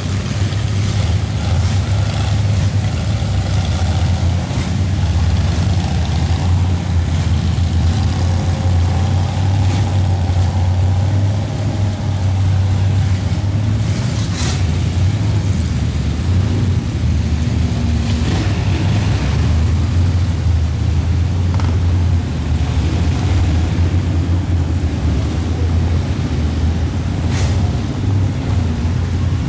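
Engines of lifted mud trucks on oversized tyres running as the trucks wade through deep muddy water, a deep steady rumble.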